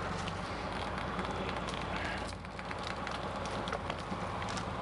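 An engine running steadily at low speed, with continuous crackling and snapping over it.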